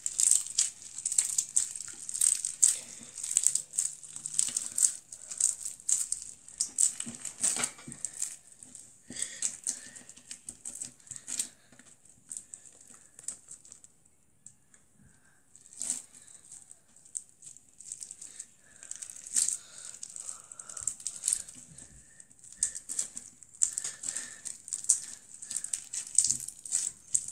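Rapid crackling and crinkling from foam-bead slime (floam) being squished and pulled against clear plastic. It goes quiet for a few seconds around the middle, then the crackling starts again.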